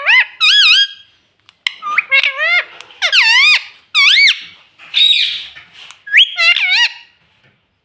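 Pet ring-necked parrot giving a run of about seven loud, high calls, each sliding up and down in pitch, with short breaks between.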